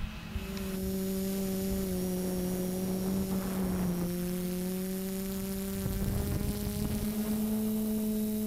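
Quadcopter's electric motors and propellers humming steadily in flight. The pitch dips slightly about four seconds in, then creeps back up.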